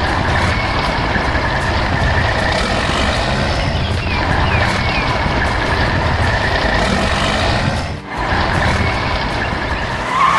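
Heavy construction machinery engines running as a steady, dense mechanical noise, with a short break about eight seconds in.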